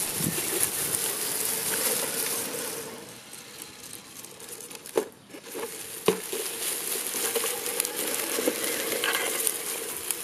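Dry fallen leaves crackling and crunching under the tyres of a 1/12-scale 3D-printed G-Wagon RC car driving over them, with a steady hum underneath. Two sharp clicks come about five and six seconds in.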